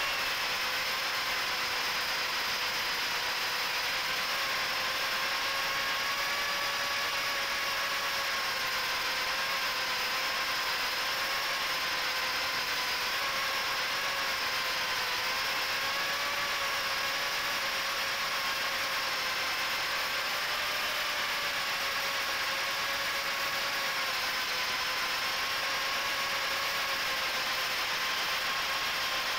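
Miniquad drone's four HGLRC 1104 7500kv brushless motors spinning Gemfan 3018 props: a steady buzzing whine, its pitch wavering slightly, heard close up from the onboard camera.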